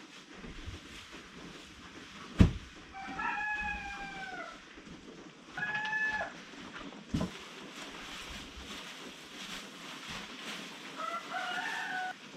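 A rooster crowing three times, each crow about a second or more long. Two sharp knocks also sound; the first, about two seconds in, is the loudest thing heard.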